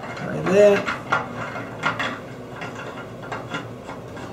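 Light metal clicks and knocks as a stainless end-cap fitting is handled and turned by hand on a shower-door support bar. A short rising pitched sound comes about half a second in.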